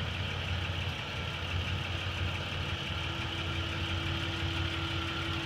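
2005 Chevy Equinox's 3.4-litre V6 idling steadily, with a faint steady tone running over the engine sound.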